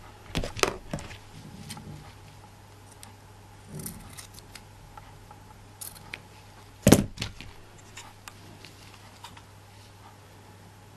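Scattered small clicks, taps and rustles of hands handling ribbons and small metal craft tools on a table, with one sharper knock about seven seconds in.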